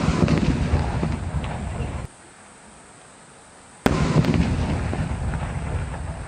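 Two aerial firework shells bursting, each a sharp bang followed by rumbling and crackling that dies away; the first cuts off abruptly about two seconds in.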